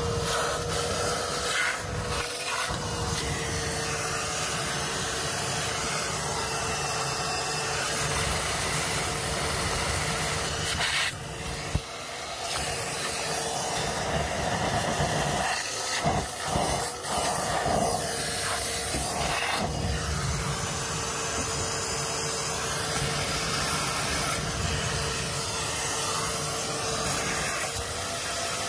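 Wet-and-dry vacuum running steadily with a constant motor whine, its hose held to the open pipework at a 3-port valve to suck water out of a drained central-heating circuit. The suction sound dips and wavers a few times around the middle.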